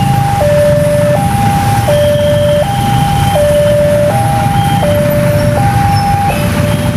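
Railway level-crossing warning alarm sounding its electronic two-tone signal, alternating a higher and a lower tone, each held about three-quarters of a second: the warning that a train is approaching. Under it, motorcycle engines run as riders cross the tracks.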